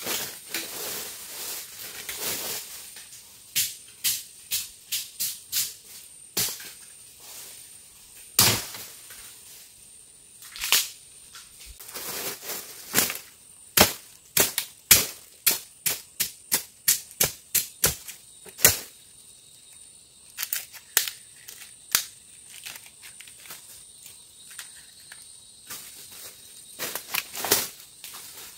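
Bamboo shoots being chopped out in a bamboo thicket: sharp, loud knocks, some single and some in quick runs of about two to three strokes a second. Dry bamboo litter rustles at first as he pushes into the stems.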